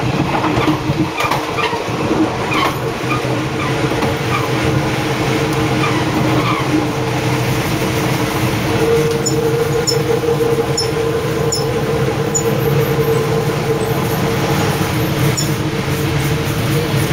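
Train running along the rails, heard from on board: a steady rumble with a droning hum and a few faint ticks partway through.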